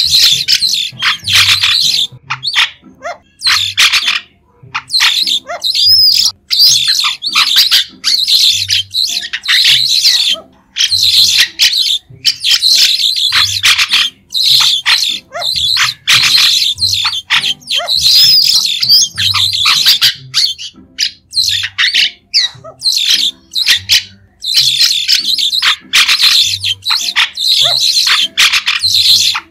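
A flock of White-shouldered Starlings calling: dense runs of short, shrill chirps and squawks, broken by brief pauses.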